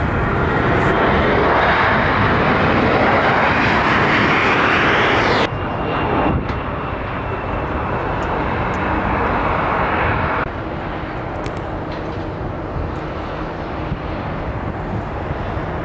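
Jet airliner engine noise in three cut-together clips. The first swells steadily and is cut off abruptly about five seconds in. The second, from a Boeing 737 on the runway, stops at a cut about ten seconds in. A quieter, steady jet noise follows.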